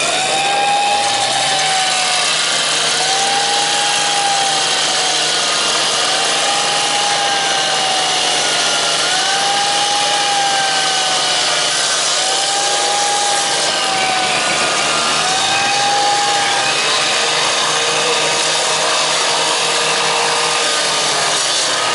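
A power cutter cutting through the steel body of an overturned railway coach: a loud, steady grinding noise. Over it, a tone rises and falls about every two seconds.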